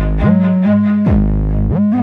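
Electronic music: a deep, sustained note that slides up and down in pitch in a repeating figure.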